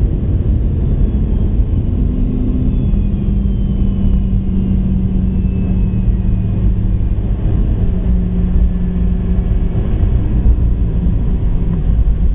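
Cabin noise inside a Boeing 717-200 rolling on the ground after landing: a steady low rumble and hum from its rear-mounted Rolls-Royce BR715 turbofans and the wheels on the pavement. A faint whine falls slowly in pitch over the first half.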